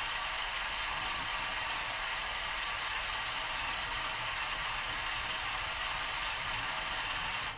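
Electric LEGO Technic crane motor in the boom running steadily, winding the winch and raising the hook with a gear whir. It stops just before the end.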